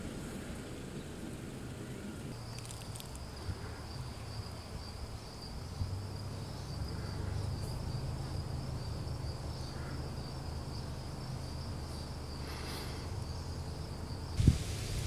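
Steady high-pitched insect buzz, starting about two seconds in, over a low outdoor rumble; a couple of loud low thumps near the end, when the buzz stops.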